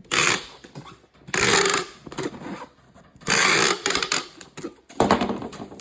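Packing tape pulled off the roll in long strips while a cardboard box is taped shut. There are three long runs about one and a half seconds apart, then a shorter one near the end.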